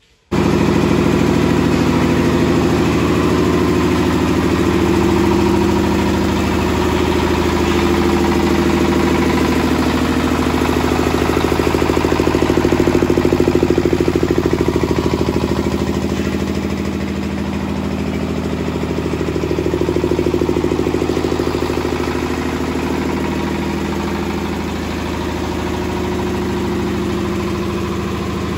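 Stationary single-cylinder diesel engine of a firewood-splitting machine running steadily, its firing pulses fast and even; the sound cuts in abruptly just after the start.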